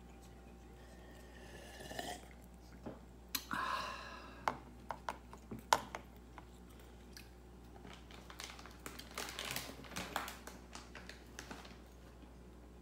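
A cat licking and chewing at a small ceramic bowl: scattered wet clicks and smacks, with a denser run of them past the middle. Two short pitched, voice-like sounds come a couple of seconds in.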